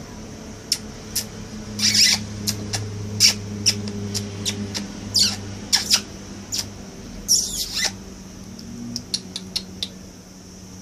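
Pet birds calling in quick, short, high chirps, with a few longer, harsher squawks mixed in, over a steady low hum.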